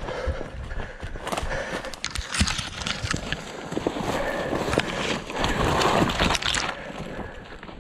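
Footsteps crunching through dry pine straw and brush, with twigs and leaves scraping and rustling against the body-worn camera as it pushes through a thicket. The sound is loudest and densest from about two seconds in until near the end.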